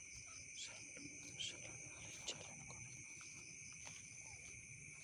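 Night insect chorus, mostly crickets: a steady, even trill at several high pitches, with two brief sharper chirps about one and a half and two and a half seconds in.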